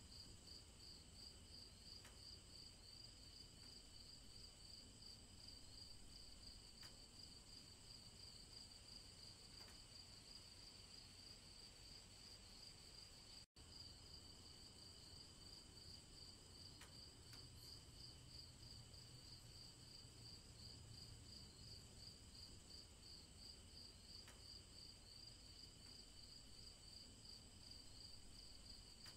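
Crickets chirring in a steady, rapidly pulsing high chorus over a faint low rumble. The sound cuts out for an instant about halfway through.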